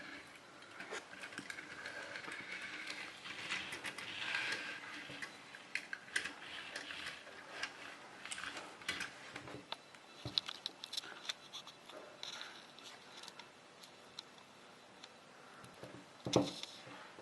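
Plastic toy cars and trucks being handled and moved, making scattered small clicks and rattles, with a louder knock near the end.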